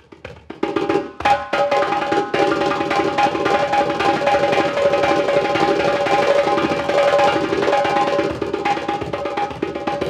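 Hand drum played with bare hands: a fast rhythmic solo that starts with sparse strokes and becomes a dense, driving flurry about a second in, its head ringing under the strokes.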